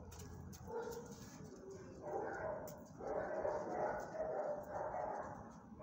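A dog vocalizing in a series of drawn-out calls about a second long each, with short pauses between them.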